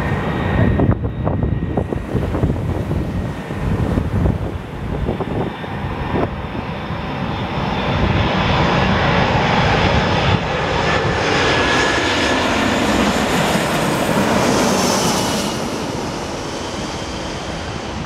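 Airbus A340 airliner's four jet engines roaring as it comes in low overhead, growing louder over the middle and then falling in pitch as it passes and moves away. Wind buffets the microphone in the first few seconds.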